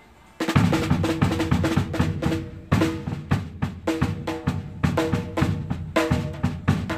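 Pearl drum kit being played in a fast, busy pattern of rapid strikes with ringing drum tones, starting about half a second in.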